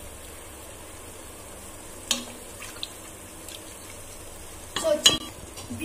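Chicken pieces in masala frying in a metal pot with a steady faint sizzle, stirred with a spoon. The spoon clicks against the pot about two seconds in, and there is a cluster of louder knocks near the end.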